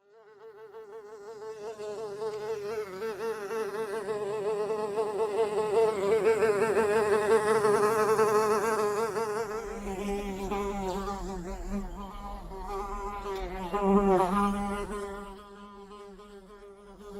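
A fly buzzing in flight, its wingbeat pitch wavering constantly. It fades in, grows loudest in the middle, swells briefly again about 14 seconds in, then dies away near the end.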